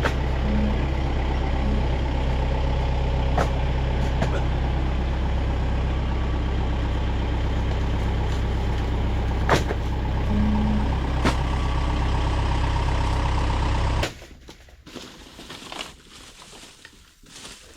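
A motor vehicle's engine running steadily, with a few sharp knocks over it, cuts off abruptly about fourteen seconds in. Faint rustling follows.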